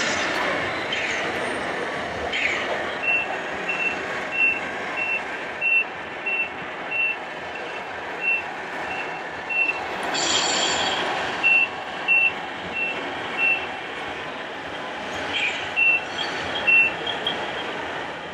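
Reversing warning beeper of a radio-controlled model truck or construction machine, sounding short, evenly spaced beeps at one high pitch, a little under two a second, stopping and restarting twice. A brief hiss comes about ten seconds in, over steady hall noise.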